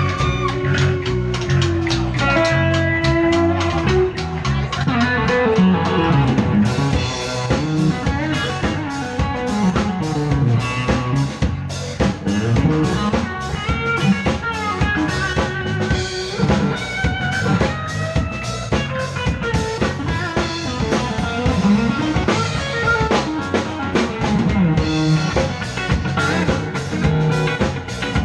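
Live rock band playing an instrumental break: a Stratocaster-style electric guitar plays a lead solo with bent notes over a steady drum-kit beat, with no vocals.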